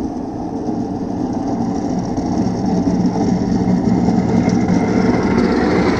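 Diesel truck engine running steadily and growing louder as a snowplow truck approaches.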